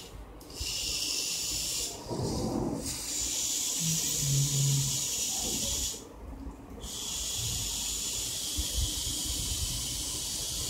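Small DC gear motors of a homemade two-wheel car whirring with a high hiss as it is driven by button presses, cutting out briefly about two seconds in and again about six seconds in, then starting again.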